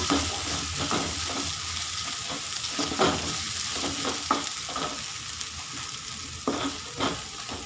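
Onion, ginger-garlic paste and spices frying in oil in a kadai: a steady sizzle with a spoon stirring and scraping the pan in irregular strokes, a few sharper scrapes about three seconds in and again near the end.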